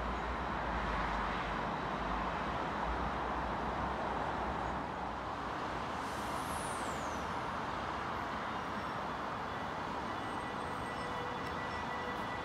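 Steady rumble and hiss of an electric passenger train running slowly into a station platform, with a brief high falling squeal about six seconds in.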